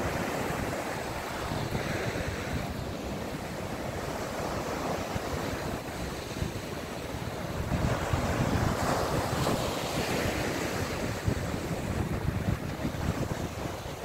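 Small sea waves breaking and washing up a sandy shore, with wind buffeting the microphone. The surf swells louder about eight seconds in for a few seconds, then eases.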